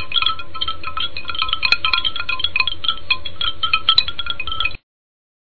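Intro music: a fast run of high-pitched, bell-like notes over a faint low hum, which cuts off suddenly about a second before the end, leaving silence.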